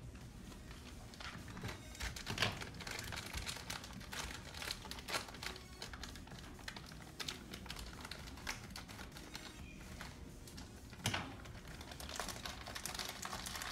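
Light, scattered clicks and rustles of a bag of brown sugar being handled and opened over a bowl.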